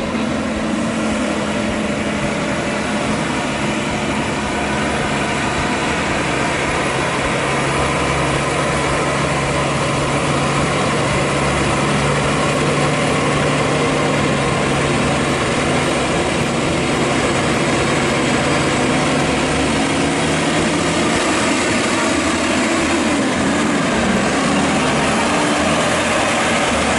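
Diesel engine of an International tractor-trailer pulling up a steep grade: a steady, low drone that grows slightly louder as the truck approaches. Near the end its pitch wavers up and down as it passes close.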